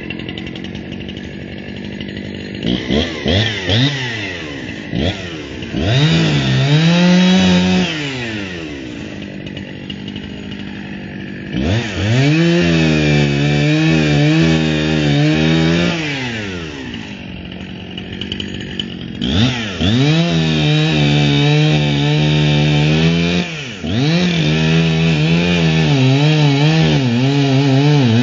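Two-stroke chainsaw cutting through a fallen tree limb. It idles, blips the throttle a few times, then runs at full throttle in three or four long cuts, dropping back to idle between them, its pitch wavering as the chain works through the wood.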